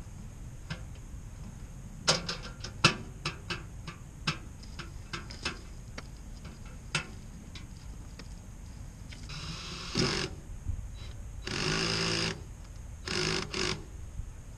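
A cordless drill runs in three short bursts about two-thirds of the way in, the middle one the longest. Before it comes a series of sharp clicks and knocks.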